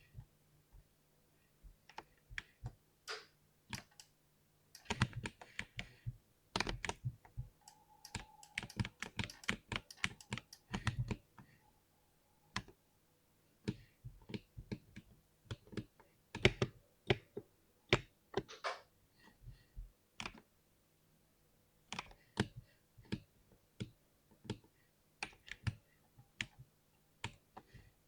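Typing on a 60% keyboard: irregular keystroke clicks, a fast dense run in the first half, then slower, sparser strokes with short pauses. The keys sound like a soggy sponge, with zero satisfaction.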